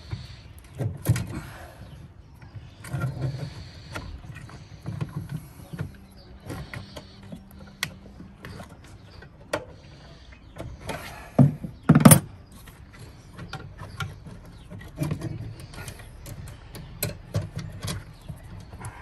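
Scattered clicks, knocks and scraping of hand tools and metal parts deep in a car's engine bay as the ABS pump is worked loose, with two louder clunks close together about eleven and twelve seconds in.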